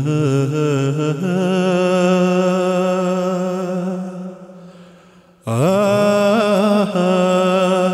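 Soundtrack music: a solo voice singing two long held notes with a wavering vibrato, chant-like. The first note fades out about four and a half seconds in, and the second enters about a second later with an upward slide.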